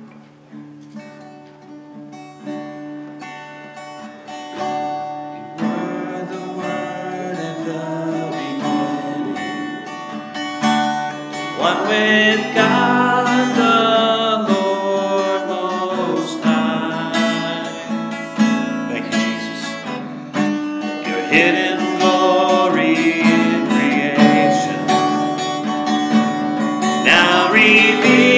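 Acoustic guitar strumming chords, growing louder over the first several seconds. About twelve seconds in, a man and a woman start singing a worship song over the guitar.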